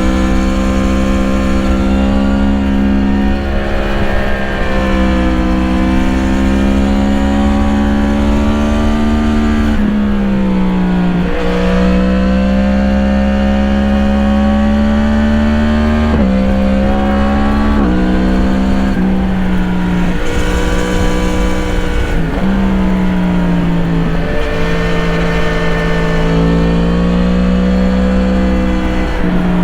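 Yamaha MT-10's crossplane inline-four, fitted with an Akrapovič slip-on exhaust, heard from the rider's seat. The engine note climbs steadily under throttle and changes pitch abruptly every few seconds as gears change through corners, over a low rumble of wind and road noise.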